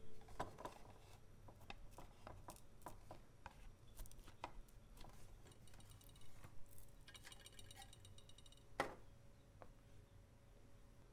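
Faint scattered clicks and taps of a stainless steel frame mould being handled and lifted off a cutting board, with one sharper click near the end.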